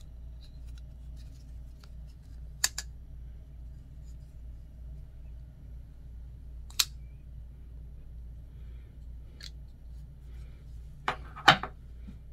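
Ganzo Firebird FH922 folding knife being opened and closed by hand: a handful of sharp metallic clicks as the D2 blade snaps out and locks, then folds shut. The clicks come a few seconds apart, with the loudest pair near the end, over a steady low hum.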